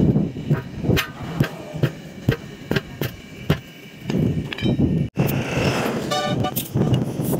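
Sledgehammer blows on a tractor tyre and its steel rim, struck steadily about two a second, stopping after about four and a half seconds. After that, a short pulsing beep.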